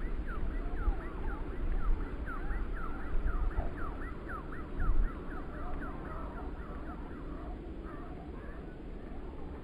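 Strong wind gusting against the microphone in a low rumble. Over it, birds chirp in a quick run of short falling notes that thins out after about six seconds.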